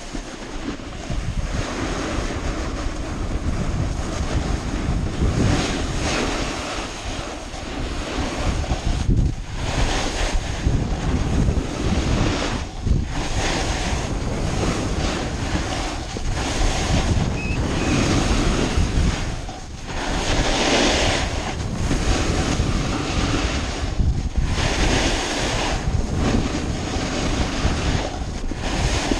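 Wind buffeting the microphone and a snowboard sliding and scraping over spring snow: a loud continuous rushing that surges and eases several times as the rider turns.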